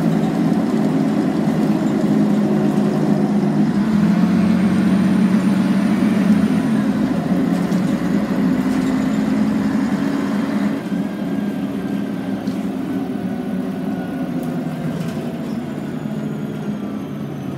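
Scania N113CRB city bus's rear-mounted six-cylinder diesel engine running under way, heard from inside the passenger cabin. The engine note steps up about four seconds in and eases near eleven seconds, after which a faint falling whine sounds over it.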